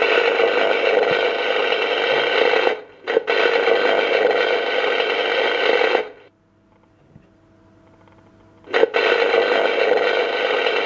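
Electric arc-welding sound effect played through the model forge's small built-in speaker: a loud hissing buzz that breaks off briefly about three seconds in, stops about six seconds in, and starts again near the end.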